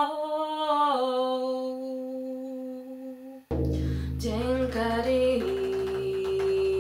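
A woman's wordless voice holding long sung notes rich in overtones, sliding gently between pitches. About three and a half seconds in, a deep drone suddenly comes in beneath the voice, and toward the end a steady held tone and light percussion strikes join it.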